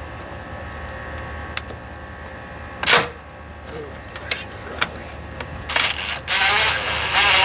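Scattered clicks and knocks of hand tools and plastic engine-bay parts being handled, with one louder knock about three seconds in. Near the end a loud, steady rushing noise starts and keeps going.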